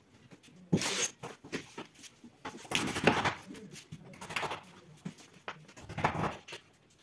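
Irregular scraping, rubbing and knocking of white particleboard cabinet panels being handled and fitted together, in short bursts every second or two with a few sharp knocks.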